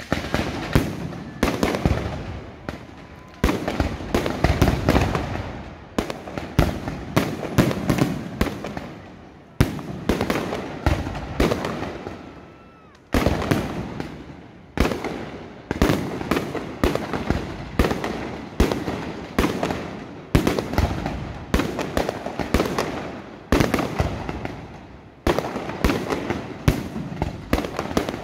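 Aerial fireworks going off in rapid succession: repeated flurries of bangs and dense crackling, each starting sharply and dying away, one after another every second or two.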